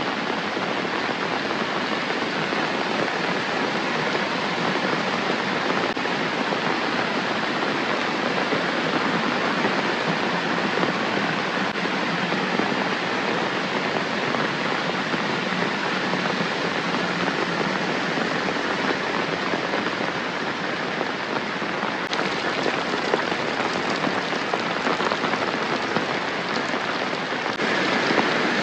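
Steady rain falling, an even patter of many drops on surfaces, growing a little louder near the end.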